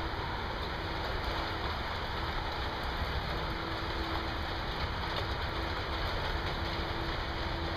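Steady rain during a severe thunderstorm, an even hiss, with a faint low hum that comes and goes.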